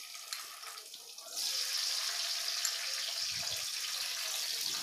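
Thin-sliced bitter gourd sizzling as it drops into hot oil with fried garlic in a nonstick kadai; the sizzle gets louder about a second and a half in as more slices go into the pan.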